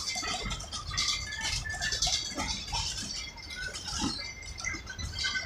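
Ride noise inside a moving narrow-gauge railroad passenger car: irregular rattling and clicking, with a few short, thin squeaks.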